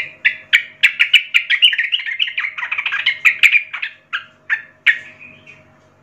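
Yellow-vented bulbul singing a fast, bubbly run of chattering notes, breaking into a few spaced notes near the end.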